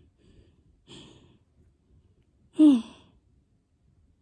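A person's breath about a second in, then a short voiced sigh falling in pitch about two and a half seconds in.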